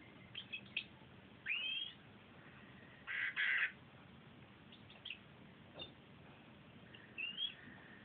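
Domestic canary chirping in short, scattered notes and whistles, some gliding up in pitch, with a louder, rougher burst about three seconds in.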